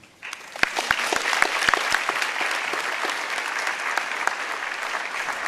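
Audience applauding, the clapping starting a moment in and then holding steady.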